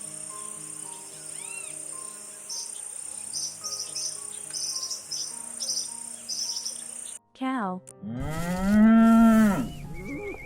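Insects chirping in short repeated trills over a steady high-pitched whine. About eight seconds in, a cow gives one long, loud moo that rises and then falls in pitch.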